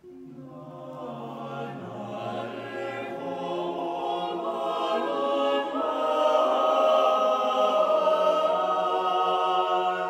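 Small mixed choir of men and women singing a cappella, the voices coming in together and swelling louder over the first six seconds, then holding long sustained chords that ring in the resonant church.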